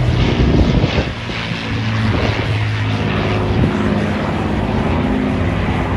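Avro Lancaster's four Rolls-Royce Merlin piston engines running in flight, a steady propeller drone as the bomber passes overhead.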